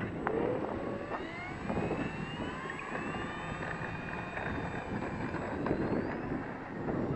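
Electric motor and propeller of a Hawker Hurricane 25e RC model plane spooling up, a whine rising in pitch over the first few seconds as the throttle is advanced, then holding high.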